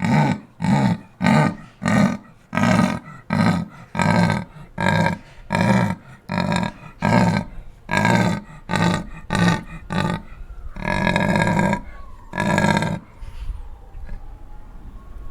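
Big cat giving its sawing call: a run of about twenty short, rasping grunts at roughly two a second, then two longer, drawn-out grunts before it stops.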